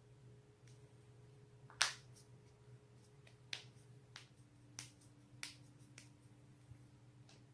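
Joints cracking: one loud, sharp pop about two seconds in, then several fainter pops and clicks spaced about a second apart, over a faint steady low hum.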